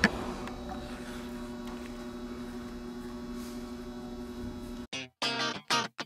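Steady electrical hum, then about five seconds in, strummed guitar music starts abruptly.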